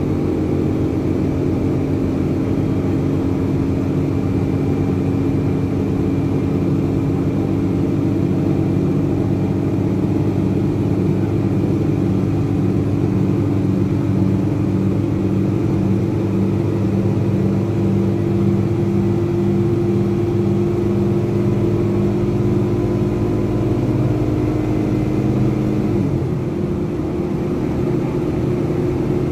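Rear-mounted Cummins ISBe 185 inline-six turbo-diesel of a Materfer BU1115LE city bus, heard from inside the passenger cabin while the bus is under way. The engine runs steadily with its pitch slowly rising, then the engine note steps down abruptly near the end.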